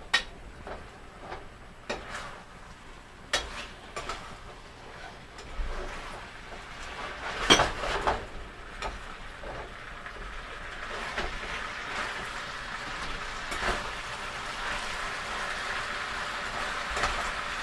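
A utensil knocking and scraping in a pan as chicken and bell peppers are tossed in a thickening cornstarch gravy. A sizzle builds from about a third of the way in and holds steady, with more knocks along the way.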